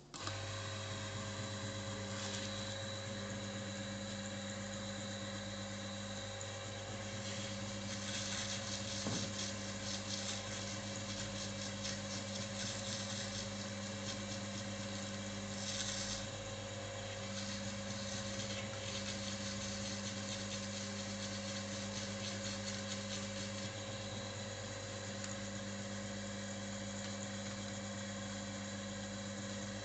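Electric motor of a bench-top oil friction-test machine switched on and running steadily with a hum, spinning its test shaft.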